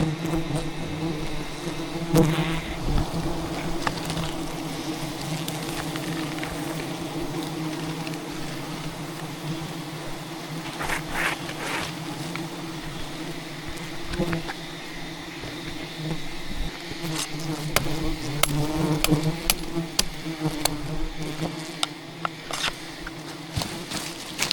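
A swarm of defensive wild giant honeybees buzzing close around the microphone in a steady, wavering drone. Scattered sharp ticks are heard twice, about halfway and again near the end, typical of bees striking the camera.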